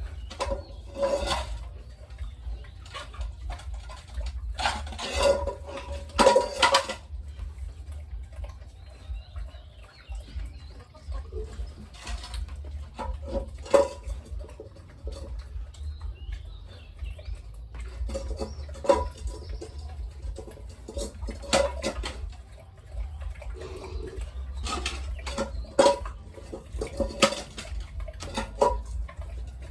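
Irregular metallic clanks and knocks with a short ringing tone, some in quick clusters, over a steady low hum. Faint high chirps come in between the clanks.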